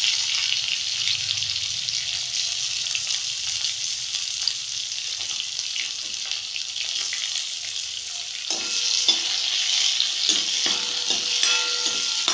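Chopped tomato sizzling in hot oil in a kadhai. About two-thirds of the way through, a steel ladle starts stirring and scraping in the pan with repeated short strokes over the steady sizzle.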